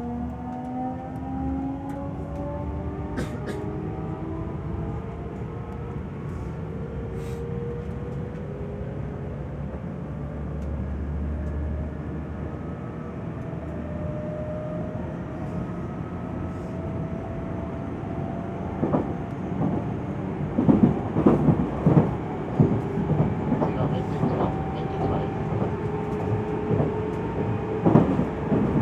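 Running sound of a JR Central 373 series electric train, heard inside the passenger car on a phone recording. The inverter and traction motor tones climb steadily in pitch as the train gathers speed. About two-thirds of the way in, the wheels start clattering loudly and unevenly over rail joints.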